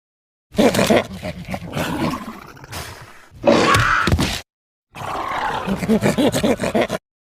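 Roars made as sound effects for a fictional raptor-like creature. There are three separate calls with silence between them. The first fades away over about three seconds, the second is a short loud call, and the third is a pulsing growl of about two seconds.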